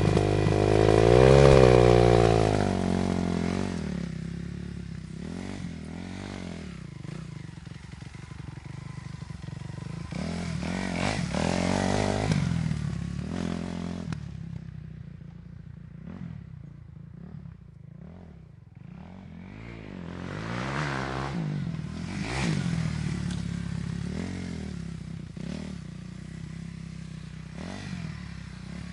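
Dirt bike engine revving and running, pitch rising and falling with the throttle. Loudest in the first few seconds, it fades to a lower, duller sound midway, then comes back up with more revving.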